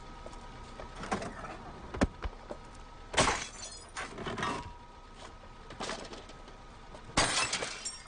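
A run of hard blows and bangs against a small car's metal body and open door, half a dozen hits spread about a second apart, the loudest two about four seconds apart with a brief rattling ring after each.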